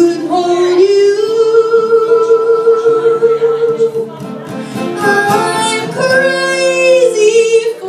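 A woman singing a slow ballad live into a microphone, holding long notes, with acoustic guitar accompaniment.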